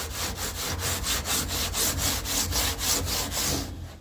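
Rapid back-and-forth hand scraping on the steel floor pan of a Classic Mini, about five strokes a second, working old sound-deadening residue out of a corner. The scraping stops near the end.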